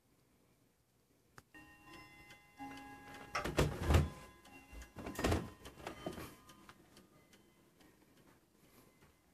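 Wall clock chiming: several ringing tones start about a second and a half in and die away over a few seconds. Two loud clattering knocks come near the middle.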